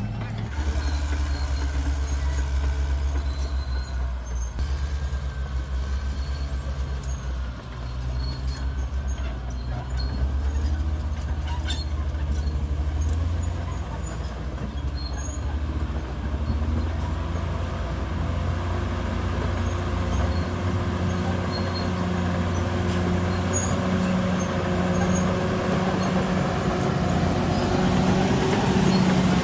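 Caterpillar D6R XL bulldozer's diesel engine running steadily, its note rising about twenty seconds in, with scattered light clicks.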